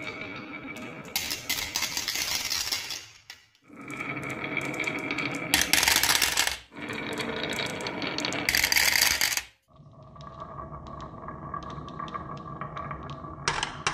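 Glass marbles rolling along a carved wooden HABA wave-slope track with a steady rumble, then clattering and clinking as they drop into the plastic bed of a toy dump truck. This happens in three runs, with a brief break after the first and after the second.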